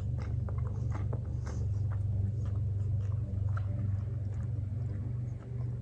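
A person chewing a mouthful of food with the mouth closed: irregular wet smacks and clicks, over a steady low hum.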